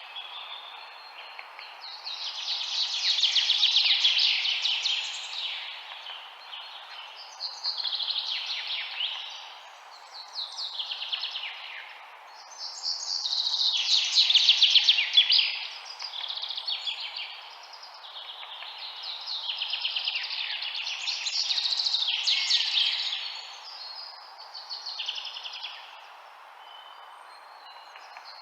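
Songbirds singing in about eight long phrases of rapid trilled notes, one after another with short gaps, over a steady background hiss.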